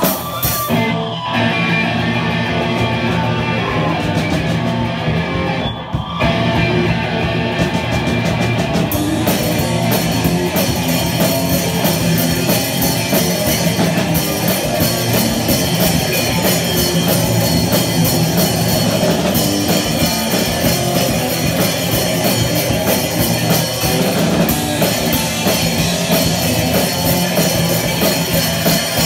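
Punk rock band playing live, instrumental: distorted electric guitar and a drum kit. The music drops out briefly about six seconds in, and from about nine seconds on the drums come in full with steady cymbals.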